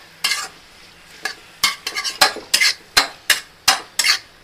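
Metal spatula scraping and stirring chopped onions and tomatoes in a metal kadai, with a faint sizzle of frying underneath. The strokes are sparse at first, then come about three a second from about a second and a half in.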